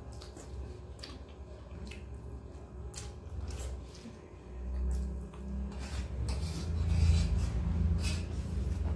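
Fingers mixing and scraping rice on a stainless steel plate: repeated light clicks and rubs. Underneath runs the steady low hum of an electric motor, with a louder low rumble in the second half.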